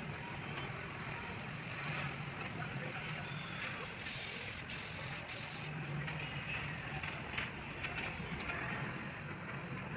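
Busy street background noise of traffic, with a few short clicks.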